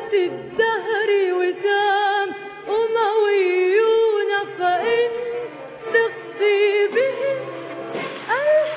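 Background music: a slow melody with a wavering, ornamented lead line, and a low held note beneath much of it.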